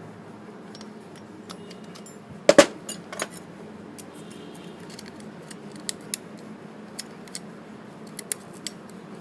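Small metallic clicks and taps of circlip pliers working at the circlip that locks the shaft in a motorcycle's front brake master cylinder, with one sharp, louder double click about two and a half seconds in.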